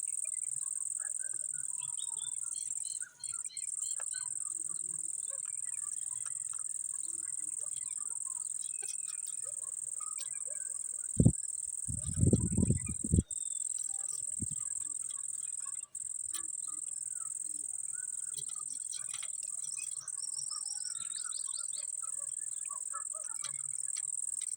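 Steady high-pitched chirring of insects such as crickets, with faint short bird chirps scattered through it. A few loud low thumps come about halfway through.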